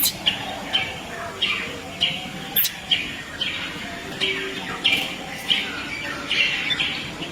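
A baby monkey crying with short, high-pitched squeals repeated about twice a second, the distress calls of an infant trapped in a coconut shell.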